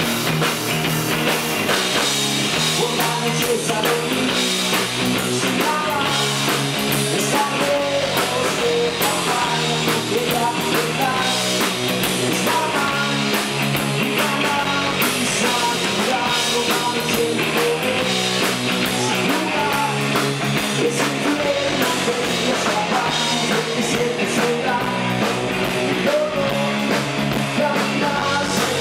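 Live rock band playing: electric guitars through guitar amplifiers, bass guitar and a drum kit, going steadily throughout.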